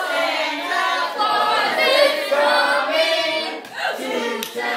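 A group of people singing together without accompaniment, several voices at once, with a short break about four seconds in.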